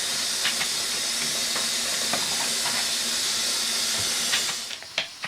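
Water running steadily from a tap, a rushing hiss, as a collotype plate is soaked under water. The flow stops abruptly near the end, followed by a few small clicks.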